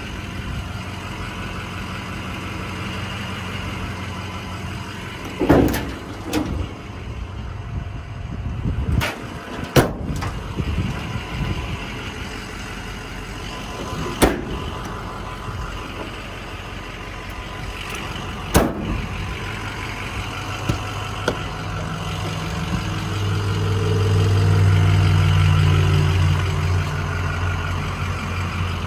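Ford F550's 6.0 diesel idling steadily, louder near the end. Five sharp clacks come from the aluminium service-body compartment doors and latches being worked.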